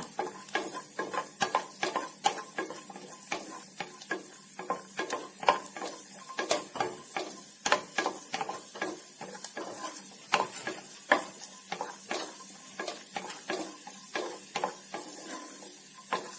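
Cashew nuts frying in ghee in a small pan while being stirred with a spoon: frequent irregular clicks and scrapes of spoon and nuts against the pan over a faint sizzle.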